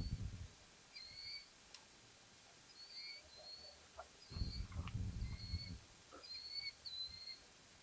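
A bird giving short chirps over and over, roughly one a second. About halfway through there is a low rumble, and a few faint clicks come and go.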